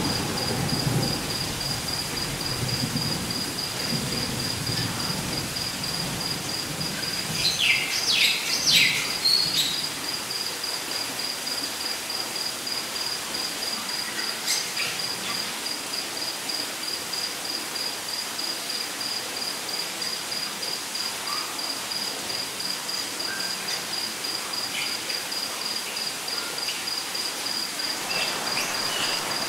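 Light rain ambience with a cricket chirping in a steady, even pulse. A few bird chirps come about eight seconds in, and a low thunder rumble fades out over the first few seconds.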